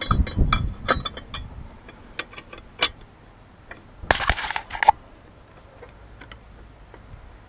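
Metal tools clinking and clicking against each other and the engine as a fan-holding tool and spanner are fitted to the cooling fan. There is a quick run of clinks at first, a sharp click near three seconds, and a short scraping rustle about four seconds in.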